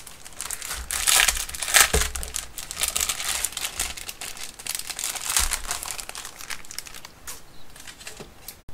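Clear plastic packaging sleeve crinkling and rustling as a stack of paper is slid out of it, busiest in the first few seconds and thinning out near the end, with a couple of soft low thumps of handling.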